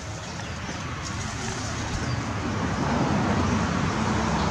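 Low, even rumble of outdoor background noise that grows louder from about two seconds in.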